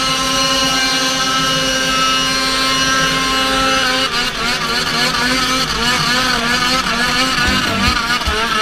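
Polaris snowmobile engine running at steady high revs while the sled skims across open water, its pitch starting to waver up and down about four seconds in.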